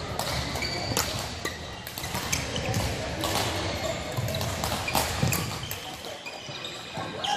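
Badminton rackets smacking shuttlecocks and court shoes squeaking on the floor, echoing in a large sports hall, with sharp irregular hits from several courts in play.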